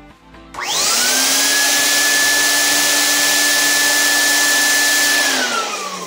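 B&G ULV fogger's newly fitted Lamb Ametek replacement blower motor switched on. It spins up in under a second to a steady high whine with a loud rush of air, runs for about four and a half seconds, then winds down with a falling whine.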